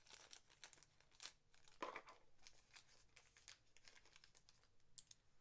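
Faint crinkling and tearing of a sealed mystery-pin blind bag being opened by hand, in irregular small crackles with a few slightly louder ones.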